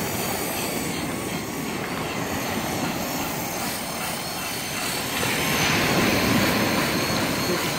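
Strong wind buffeting the microphone over surf washing on a pebble beach, swelling louder about five seconds in.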